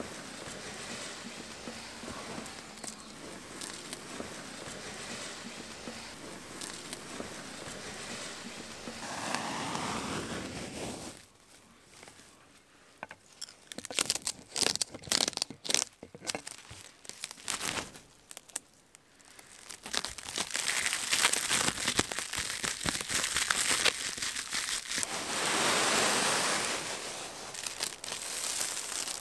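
Clear plastic stretch wrap being pulled off its hand roll and drawn taut around trees, a continuous crackling, tearing hiss of the film peeling from the roll. There is a quieter spell in the middle with only scattered crinkles and clicks before the unrolling picks up again, louder.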